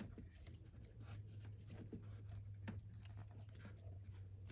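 Faint, scattered light clicks and rustles of a hand handling wires and a small plastic splice connector, over a steady low hum.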